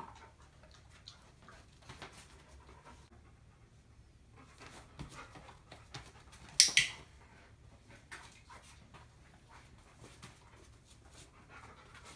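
Dog panting softly with faint irregular ticks, and one short loud hissing burst about halfway through.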